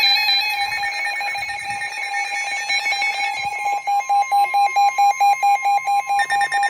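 Several NOAA weather alert radios sounding their alarms together for a severe thunderstorm warning: overlapping electronic tones that turn into a rapid, even pulsing beep about four seconds in, with a steady higher tone underneath.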